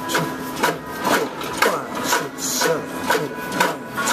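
Cybex weight-stack machine worked in rapid repetitions, about two strokes a second: each lift and drop of the stack gives a rubbing, rasping stroke that slides in pitch, with a light knock at each turn.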